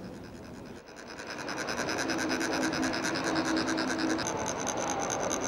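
A chakpu, a ridged metal sand funnel, being rasped with a metal rod so that it vibrates and trickles coloured sand onto a mandala. The rasp is rapid and even, starting about a second in and growing louder, and a thin high ring joins it later.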